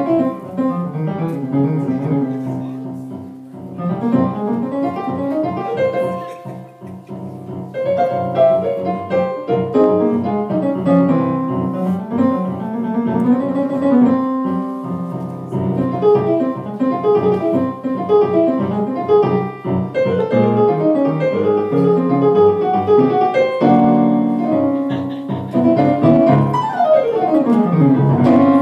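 Electronic stage keyboard played in a piano voice: a slow, continuous stream of chords and melodic runs. Near the end, notes slide down and back up.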